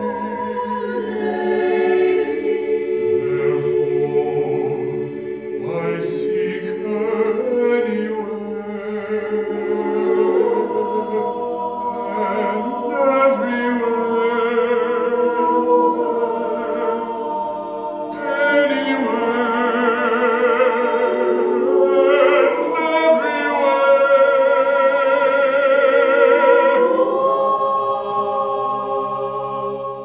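Small mixed choir singing a cappella: slow, sustained chords of held notes, with a wavering vibrato and a fuller, louder sound in the second half.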